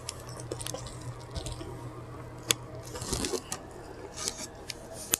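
Close-miked eating: quiet chewing with soft wet mouth clicks and smacks, one sharper click about halfway through.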